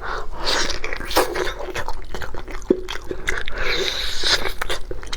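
Close-up wet chewing and biting of food: irregular smacks and crunchy clicks.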